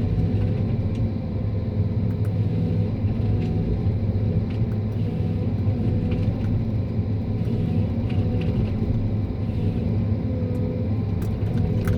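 John Deere 1270G eight-wheel harvester's diesel engine running steadily, with a low, even drone and a few faint ticks.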